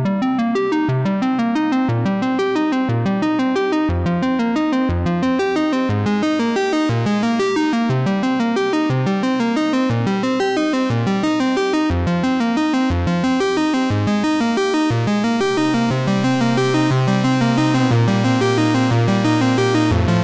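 Background music on synthesizer and keyboard, a steady pattern of short repeating notes; a held low bass note comes in about three quarters of the way through.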